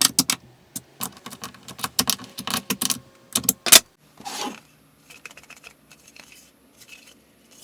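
Quick run of small metallic clicks and clinks from the joint's bolt, nut and washer hardware being handled. Two louder clicks and a short scrape follow about halfway through, then a few faint scattered clicks.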